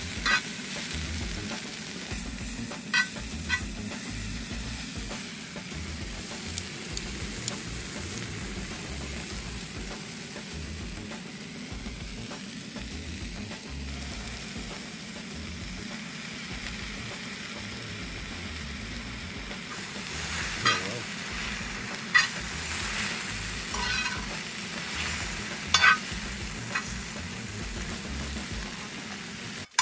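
Noodles sizzling and frying on an iKamper Disco propane disc cooker as they are stirred, with a metal utensil clinking against the pan a few times, most often near the end.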